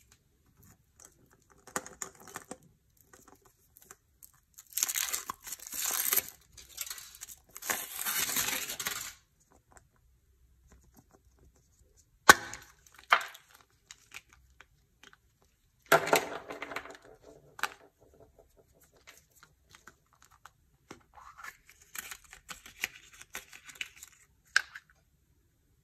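Foil wrapper of a chocolate surprise egg crinkling and tearing as it is peeled off, then two sharp cracks as the chocolate shell is broken open. After that come plastic clicks and rustling as the toy capsule inside is opened and handled.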